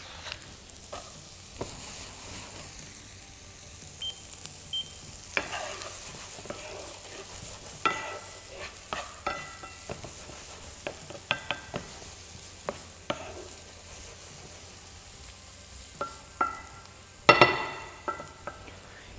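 Diced onion, carrot and celery sizzling gently in foaming butter in a frying pan, with a utensil knocking and scraping against the pan as the vegetables are stirred. Several knocks ring briefly; the loudest clink comes near the end.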